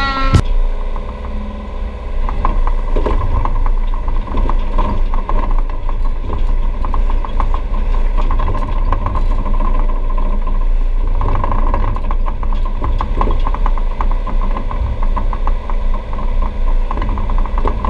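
Takeuchi TB235 mini excavator's diesel engine running steadily, heard from inside the cab, with a fast, dense rattle as the operator works the arm; it grows louder about two seconds in.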